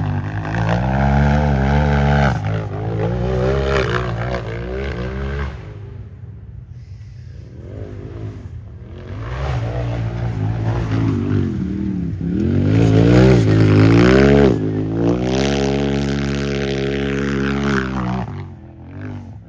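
Unlimited-class race UTV engine revving hard under full throttle, its pitch repeatedly climbing and dropping with throttle and shifts. It fades about a third of the way in, then comes back loud in the middle and latter part.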